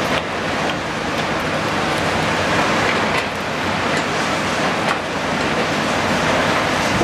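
CAT 320DL excavator's diesel engine running under load as the machine swings a bucket of dirt, heard through a steady hiss of site noise.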